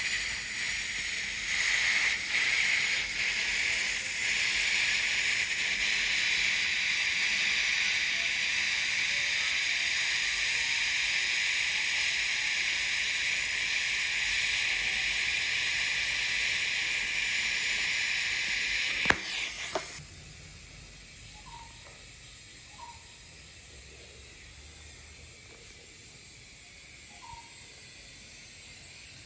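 TIG welding arc on carbon steel pipe during the root pass, at about 90 amps, running as a steady hiss. A sharp click comes just before the arc cuts off about two-thirds of the way in, leaving only faint background.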